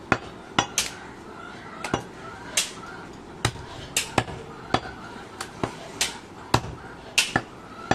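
Butcher's cleaver chopping goat ribs on a wooden log chopping block: about fifteen sharp chops at an uneven pace, some in quick pairs.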